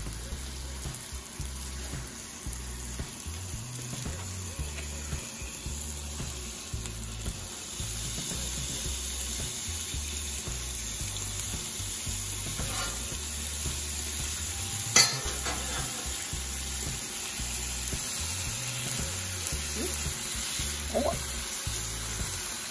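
Food sizzling in a frying pan: a steady hiss that grows louder about eight seconds in, with one sharp clink of a utensil against the pan about fifteen seconds in.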